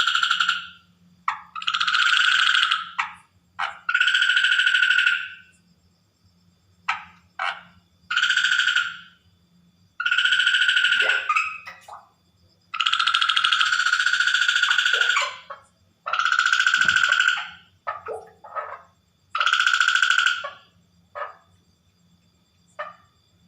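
Water frog calling over and over, each call a fast, pulsed trill lasting one to two and a half seconds, with short single notes in the gaps between.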